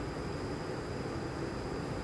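Steady low rumble and hum inside a Stockholm Metro C6 subway car, with a faint high steady whine above it.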